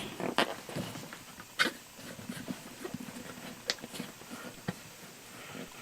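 Scattered knocks, clicks and rubbing of a rubber inner tube and tire being pushed and worked by hand, with a few sharper knocks about half a second, a second and a half and nearly four seconds in.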